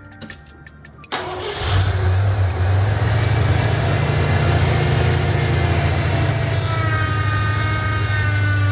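1990 Ford Bronco engine cranking and catching about a second in, then idling steadily. Near the end a thin whine comes in over the idle, from the freshly rebuilt power steering pump, which the owner thinks just needs to work the fluid through.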